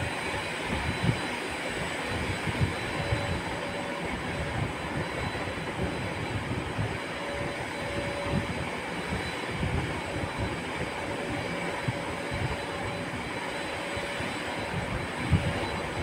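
Steady rumbling background noise with a faint hiss, like a passing train or running machinery, with no clear rhythm.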